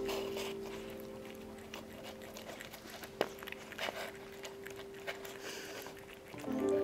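Cat eating wet food from a foil tray: quick, irregular wet chewing and smacking clicks, with one sharper click about three seconds in.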